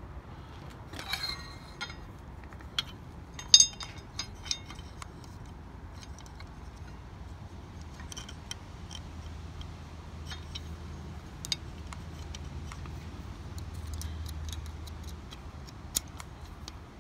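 Sharp metal clicks and small rattles from the steel garden cart's handle hardware and its hitch pin and hairpin clip being handled and fitted. There is a rattle about a second in, the loudest click a few seconds in, and scattered single clicks after that, over a low steady rumble.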